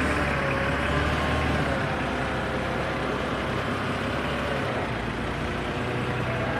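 Forklift engine running steadily, its low note shifting about two seconds in and again near five seconds as the forklift manoeuvres a heavy machine.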